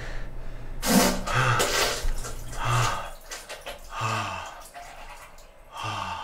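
A series of wet, splattering bursts of diarrhea into a toilet bowl, mixed with a man's straining grunts.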